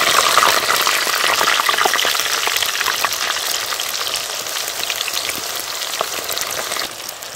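Slices of raw green banana deep-frying in hot oil, a dense crackling sizzle. It is loudest just after the slices go in and slowly dies down.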